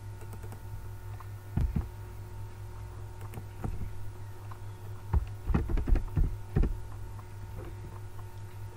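Steady electrical hum on the recording, with computer mouse and keyboard clicks. A quick pair of clicks comes about one and a half seconds in, then a few single clicks, then a fast run of about six key taps between five and seven seconds in as a short word is typed.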